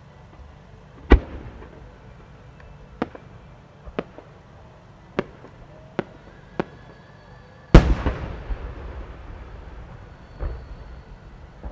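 A 12-inch (No. 10) Japanese warimono firework shell with rising small flowers: a loud bang about a second in, a string of sharp small cracks as the small-flower bursts go off on the ascent, then the main eight-layer-core peony bursting with the loudest boom, which rolls and echoes for several seconds, and another thud near the end.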